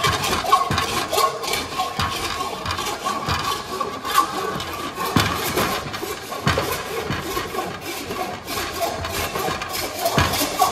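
Hand tool cutting and working a sheet of aluminium on a wooden bench: irregular metallic scraping and cutting strokes, over background music.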